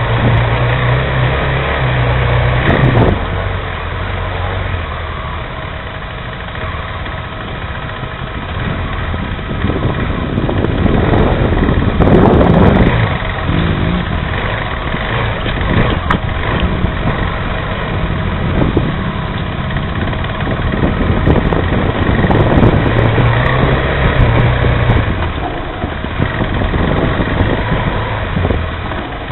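Motorcycle engines running: idling, then revving up and down, growing louder a few times.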